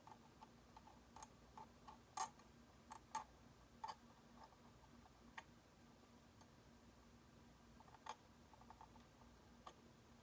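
Faint, irregular clicks and light scrapes of a metal dental hand scaler working on the plastic teeth of a typodont, the loudest a little after two seconds in.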